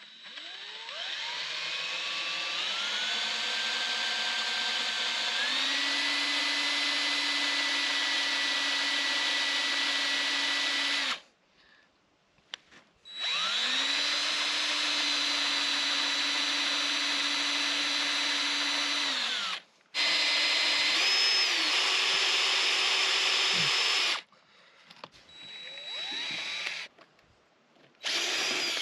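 Cordless drill turning a 1 7/8-inch hole saw on the steel well casing in several runs of a few seconds each, stopping briefly between. In the first run the motor whine climbs in steps as it speeds up.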